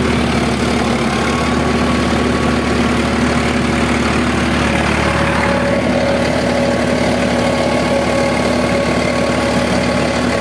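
Farmtrac 60 Powermaxx tractor's three-cylinder diesel engine running steadily at about 1500–1600 rpm, pulling an 18-disc harrow in first high gear. It holds its revs under the load, dropping barely 100 rpm.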